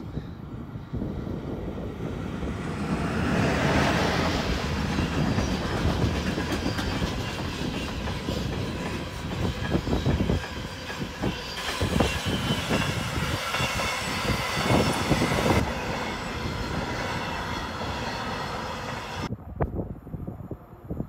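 SBB electric locomotive and a long container freight train passing close by. The rumble of the locomotive swells to a peak about four seconds in, then the wagons roll past with a run of clattering wheel clicks, and the train noise cuts off abruptly near the end as the last wagon goes by.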